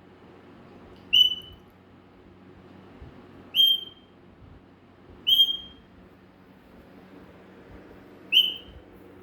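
African grey parrot whistling four short, clear notes, each about half a second long and spaced a couple of seconds apart.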